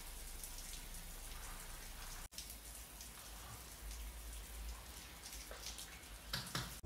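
Steady rain, a faint even hiss, with a couple of soft ticks near the end.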